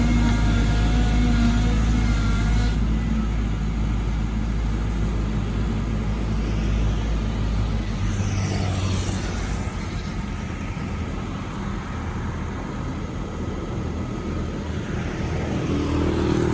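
Cat 313GC excavator's diesel engine running steadily. About eight seconds in, its deep low tone drops away and a lighter, noisier engine sound carries on.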